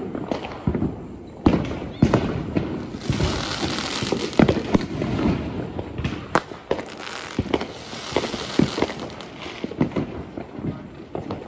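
Fireworks and firecrackers going off: an irregular stream of pops and bangs, several a second, with a hiss of crackle between them.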